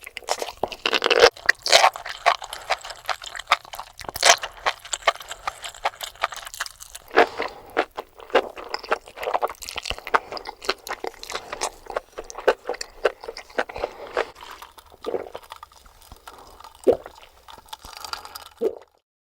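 Close-miked eating: crunchy mushrooms being bitten and chewed, with many sharp, irregular crunches and wet mouth sounds. The sound cuts off suddenly near the end.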